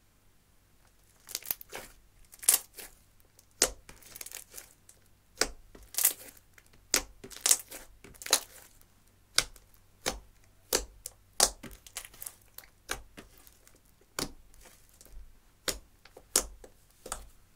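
Thick slime, clear slime with eyeshadow mixed in, being pressed and folded by hand: a string of sharp wet pops and clicks, one or two a second, starting a little over a second in.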